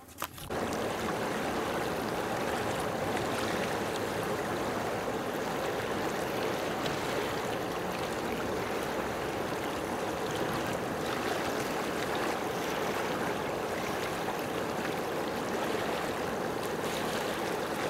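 Steady rushing of water, like waves or a stream, starting suddenly about half a second in.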